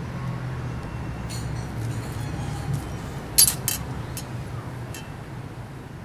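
Steady low rumble of street traffic, with two sharp clinks in quick succession about three and a half seconds in and a few fainter ticks.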